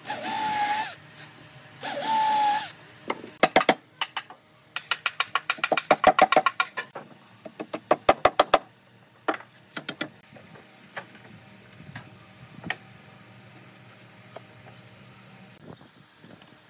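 A cordless drill runs in two short bursts with a steady whine, then rapid runs of sharp clicks and scattered light knocks on wood.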